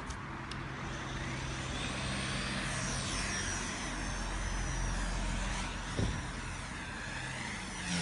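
WLToys V977 micro RC helicopter's brushless motor and rotor whining, the pitch sweeping up and down as it lifts off and climbs. Strong wind rumbles on the microphone, and there is a short knock about six seconds in.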